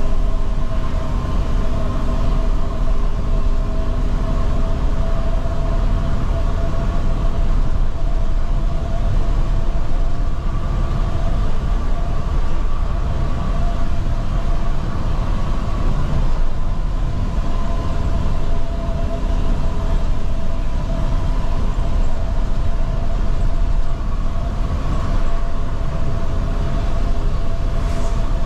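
Inside a moving Damri Royal Class coach at road speed: a steady low rumble of engine and tyres, with a few steady whining tones held over it.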